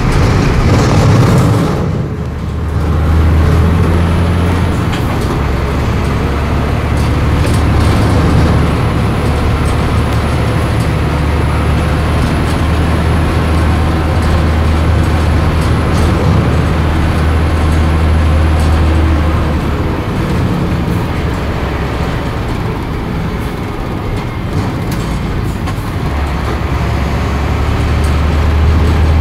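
Vehicle interior noise while driving on a dirt road: a steady low engine drone over the noise of tyres on the road surface. The drone drops away for a few seconds about two-thirds through, then comes back.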